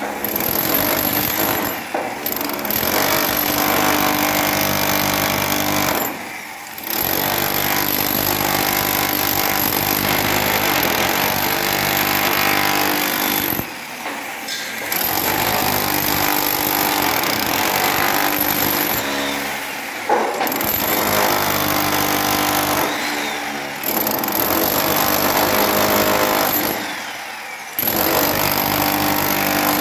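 Handheld power demolition hammer chiselling into a reinforced concrete slab, hammering steadily in long runs. It stops briefly about six times and starts again.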